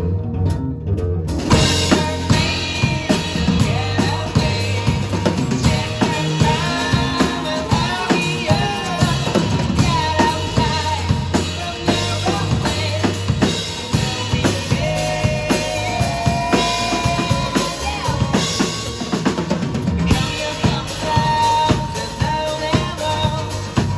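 Live rock band playing an instrumental passage with no vocals: drum kit with snare and kick drum keeping a steady beat under bass and guitar. The band thins out for about a second near the start, then the full band comes back in.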